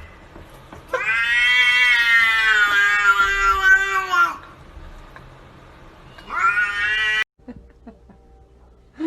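Domestic cat yowling: one long drawn-out yowl of about three seconds that sags slightly in pitch, then a second, shorter cry a couple of seconds later that cuts off suddenly.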